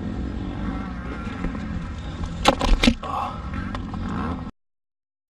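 Steady low drone of distant motocross bikes running on the track, with a quick run of three or four sharp knocks about two and a half seconds in as the helmet-mounted camera is handled; the sound cuts off abruptly near the end.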